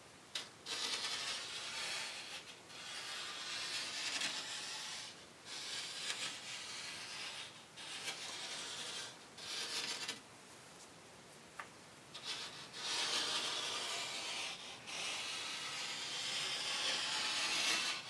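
Packed cement sand crunching and rasping in repeated gritty strokes, each a second or two long with short breaks between them. There is a longer pause about two thirds of the way through, broken by one small click.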